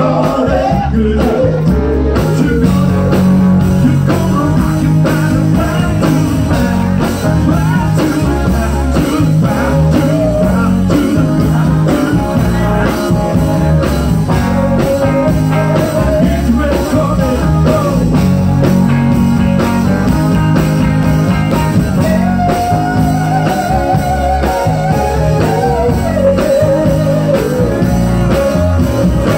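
Live band music: an electric guitar playing lead lines over a steady bass-and-drum groove, with notes that bend and waver near the end.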